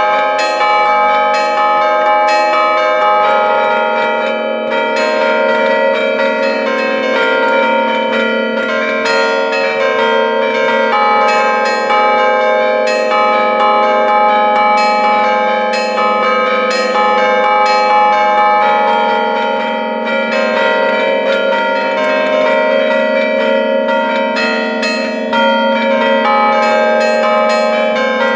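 Five church bells tuned in A-flat, cast by Giorgio Pruneri in 1907 (the E-flat bell recast by Carlo Ottolina in 1965), played as allegrezze from a wooden hand keyboard. The clappers strike in quick succession, making a tuneful pattern over continuous ringing, heard close up from inside the bell chamber.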